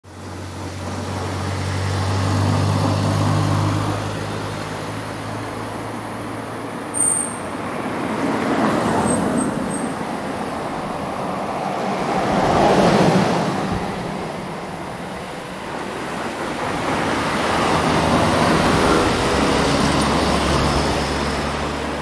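Road traffic ambience: a steady wash of tyre and engine noise as vehicles pass one after another, swelling and fading about four times. A low engine hum comes through at the start, and a brief high squeak is heard about seven seconds in.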